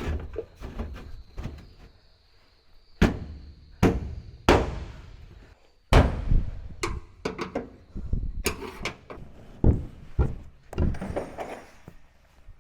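Irregular series of heavy clunks and knocks, some with a short metallic ring, as covers are lifted and fitted onto a combine header, the hardest strikes in the first half.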